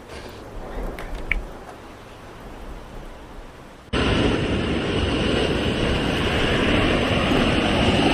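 Storm noise: a quieter stretch with a few small clicks, then an abrupt cut about four seconds in to loud, steady rushing wind and rain.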